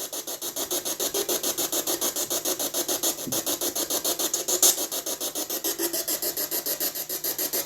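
Ghost-hunting spirit box sweeping through radio stations: a steady, rapid chop of static, about eight or nine pulses a second, with brief broken fragments of radio sound, listened to for a spirit's reply.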